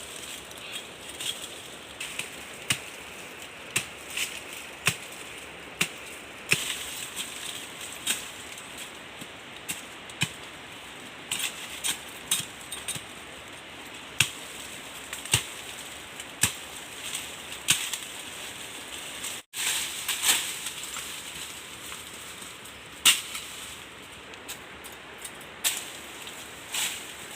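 Wood fire crackling, with sharp irregular pops over a steady hiss.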